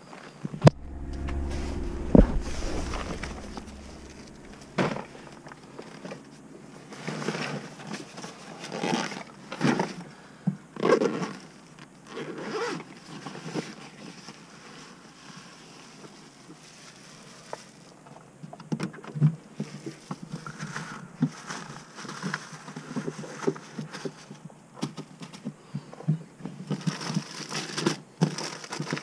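Gear being handled in a car trunk: a bag rustled and pulled at, then a plastic cooler's lid and contents moved. An irregular run of short scrapes, knocks and rustles.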